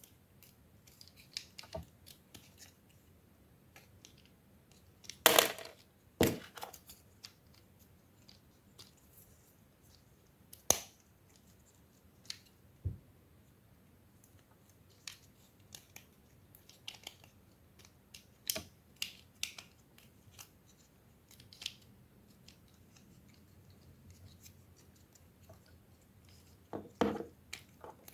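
Scattered clicks, scrapes and rustles of toys being handled, with a few louder knocks about five, six, eleven and twenty-seven seconds in.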